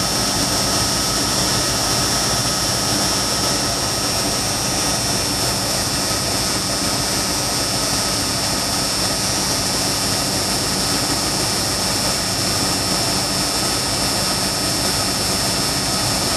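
1996 Dodge truck's 5.2-litre V8 idling steadily with a constant whine over the engine note. It is running after new spark plugs and a replacement for a coil wire that was shorting to the exhaust manifold, with its misfire codes cleared.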